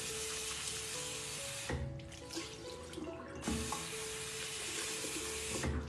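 Water from a tap pouring into a bathroom sink, easing off for about a second and a half near the middle and then running again. Background music plays underneath.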